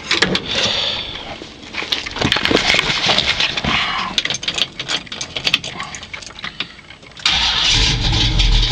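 Scattered clicks and knocks for about seven seconds. Then the 1968 Pontiac Firebird's 406-cubic-inch V8 (a 400 bored .030 over) fires up suddenly and settles into a steady, deep running rumble through Flowmaster exhausts. This is a warm start, the engine having sat for about an hour.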